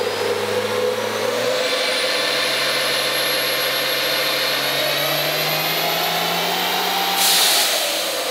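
Compound-turbocharged 6.7 L Cummins diesel in a 2016 Ram running under load on a chassis dyno: the engine note steps about a second and a half in, then climbs steadily with a high turbo whine over it. About seven seconds in comes a short, loud burst of hiss, and the engine pitch falls away.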